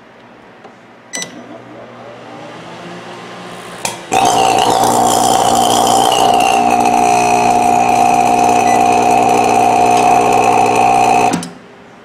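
Sharp Carousel microwave oven, cover off, clicks on and hums steadily. About four seconds in, a very loud buzzing, sparking noise breaks out, runs for about seven seconds and then cuts off sharply. It is the sign of arcing from a burned-through waveguide cover, which the repairer names as the fault.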